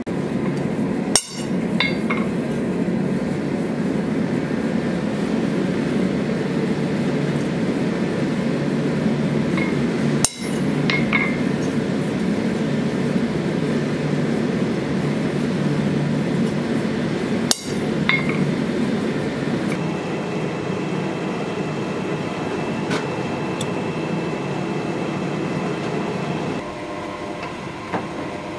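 Three sharp metallic clanks of steel striking steel, each with a brief ring, several seconds apart, over a steady low roar. A few steady tones come in during the last third.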